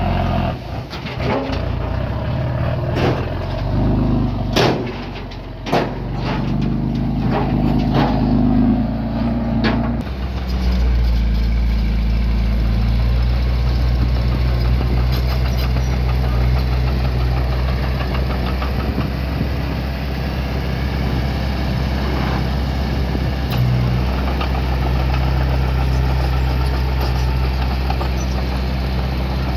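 Diesel engine of small earthmoving machinery running, with a series of sharp knocks and clanks and changing engine pitch over the first ten seconds or so, then settling into a steady low drone.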